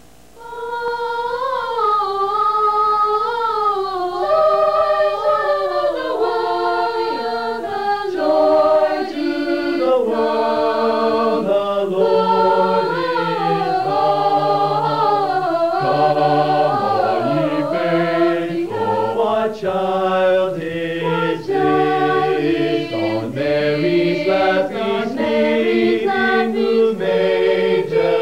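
Mixed choir of men's and women's voices singing a cappella, with no instruments. The higher voices start the phrase and lower voices join about six seconds in.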